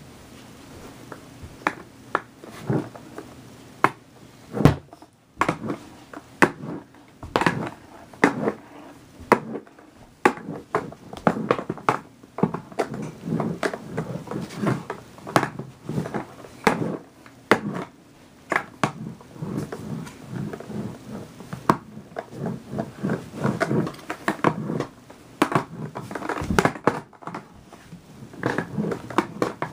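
An irregular run of knocks, clicks and clatters, some short and dry, others ringing briefly, with a brief lull about five seconds in.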